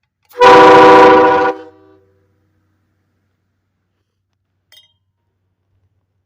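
Quadraphonic Express air-powered train horn giving one blast of about a second, a chord of several steady tones sounding together, ridiculously loud, then cutting off with a short fading tail.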